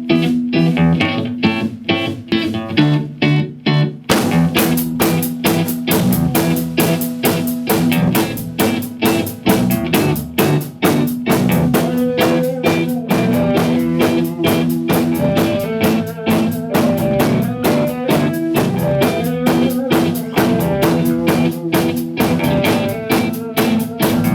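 Band playing the instrumental intro of a song. A guitar plays alone at first, then the drum kit and the rest of the band come in together about four seconds in with a steady beat.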